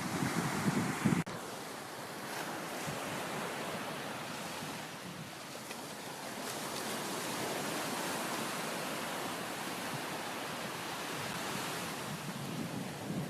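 Sea surf washing on the shore, a steady rushing wash. Wind buffets the microphone in the first second, and the sound drops abruptly about a second in before the even wash carries on.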